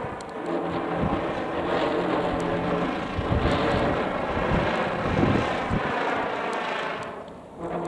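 Strong gusty wind blowing over the microphone, with a steady low buzz running through it; the wind eases briefly near the end.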